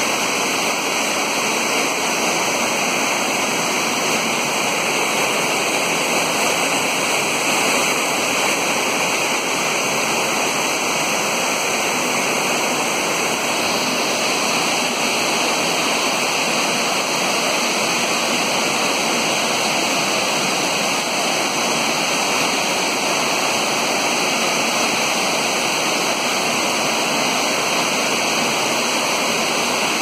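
Misol-Ha waterfall's water falling, a steady, unbroken rush of noise.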